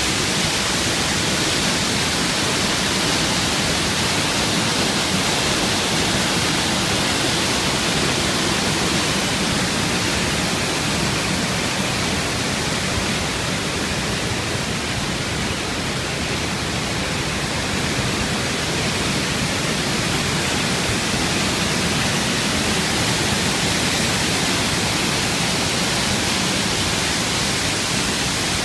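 Waterfall: white water pouring over a rock ledge into a pool, making a steady, unbroken rush of water.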